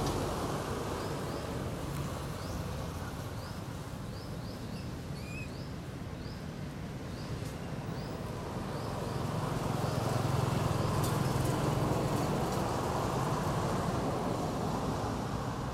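Outdoor ambience: a steady background hiss and low rumble that grows louder past the middle. Over it, in the first half, a small bird gives a quick series of short, high chirps.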